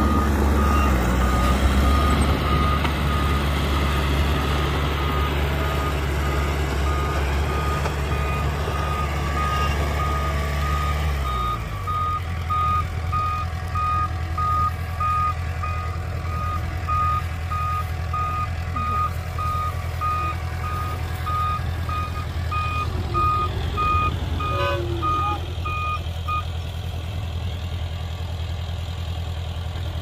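A heavy earthmoving vehicle's reversing alarm beeps repeatedly over its loud diesel engine. About eleven seconds in, the engine drops to a lower speed. The beeping stops a few seconds before the end.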